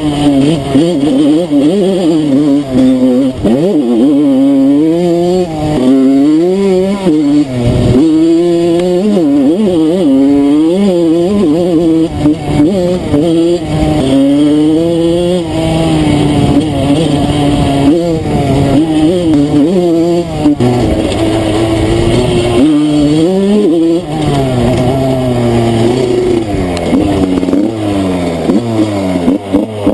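Enduro dirt bike engine being ridden off-road, revving up and falling back over and over as the throttle is worked.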